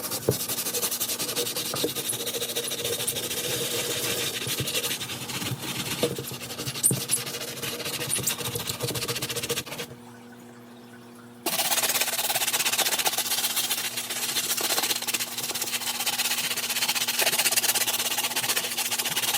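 Stiff-bristled brush scrubbing a sneaker's rubber midsole and outsole with detergent: a continuous wet scratching that stops for a moment about ten seconds in, over a faint steady hum.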